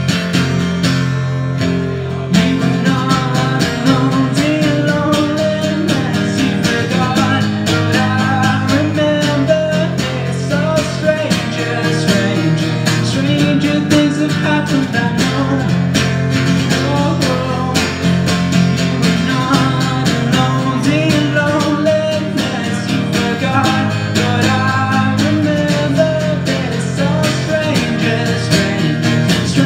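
Acoustic guitar strummed in a steady rhythm with changing chords, an instrumental passage of a live song.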